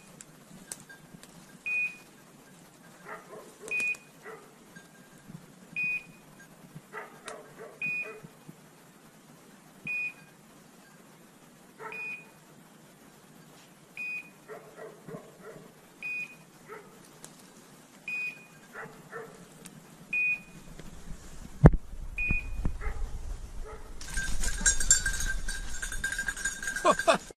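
Beeper collar on an English setter holding point, sounding a short high beep about every two seconds: the signal that the dog is on point. In the last few seconds a sharp knock and then a louder rustling of movement take over.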